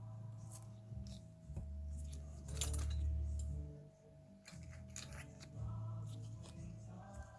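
Background music with held low notes, over a few light clicks and taps.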